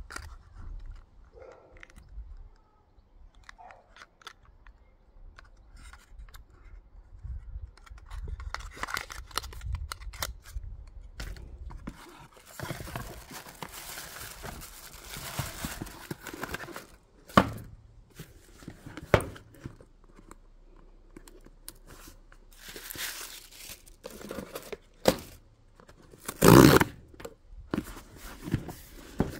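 Paper packaging being handled. Tissue paper rustles and crinkles for a few seconds, there are a few sharp knocks, and near the end a loud rip as the cardboard tear strip of a mailer box is pulled open.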